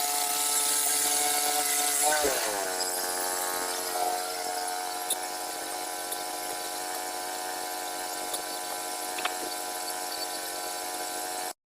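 Small gas engine of a portable bandsaw sawmill running steadily; about two seconds in its pitch drops as it slows down, then holds at the lower speed. The sound cuts off suddenly near the end.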